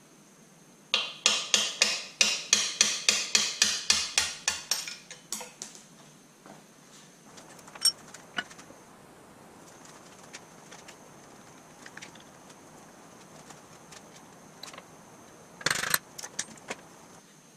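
A quick run of hammer taps on metal, about four a second for roughly four seconds, growing fainter toward the end. Scattered light clicks follow, then a short clatter near the end.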